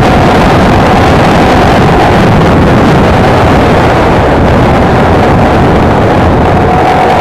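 Honda XLR125R motorcycle's single-cylinder engine running at a steady cruising speed, under loud, steady wind rushing over the microphone.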